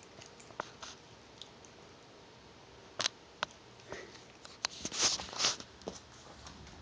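A cat chewing and mouthing a rubber band: scattered soft clicks and smacks, with a cluster of louder breathy bursts about five seconds in.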